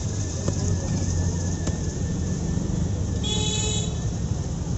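Steady low rumble of street traffic, with a couple of light clicks. About three seconds in comes a brief high-pitched tone lasting about half a second.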